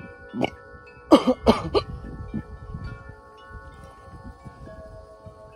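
A man hiccuping from the heat of a hot pepper: a small hiccup, then three sharp ones in quick succession about a second in. Wind chimes ring steadily in the background.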